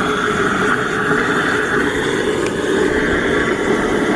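A water pump running steadily, pumping water out of the fountain, with a constant mechanical hum.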